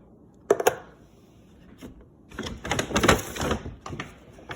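Groceries being handled and set down: two sharp knocks about half a second in, then about a second of clattering and crinkling around three seconds in.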